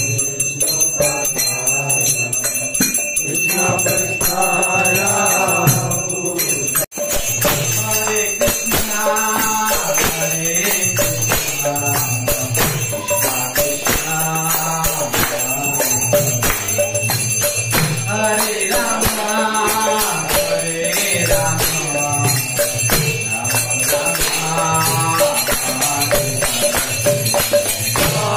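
Hindu devotional singing (kirtan) with a bell ringing, with a brief break about seven seconds in.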